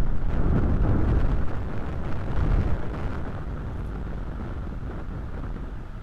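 Wind buffeting the nest camera's microphone: a low, gusty rush that is loudest in the first couple of seconds, then eases to a steadier, softer noise.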